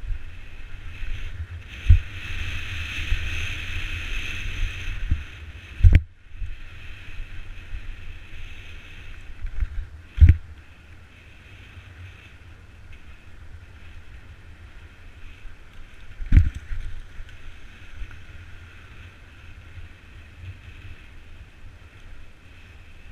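Wind buffeting a helmet-mounted camera's microphone while riding a mountain bike, with tyre rumble. Four sharp knocks as the bike hits bumps, about 2, 6, 10 and 16 seconds in. The rush is louder for the first six seconds on the dirt descent, then quieter on pavement.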